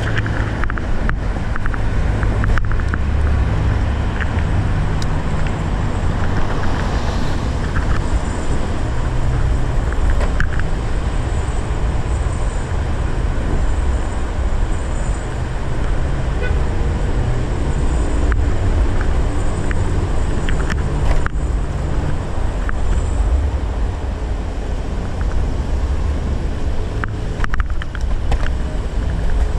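Steady road and traffic noise heard from a moving Segway Ninebot ES1 electric kick scooter: a heavy low rumble with a few short sharp clicks scattered through it.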